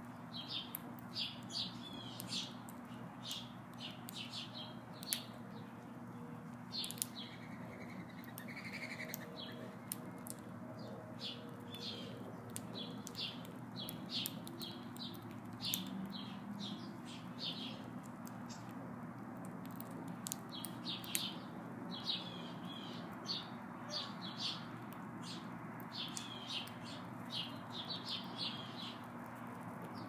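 House sparrows chirping: many short, high cheeps spread through the whole time, over a steady low hum.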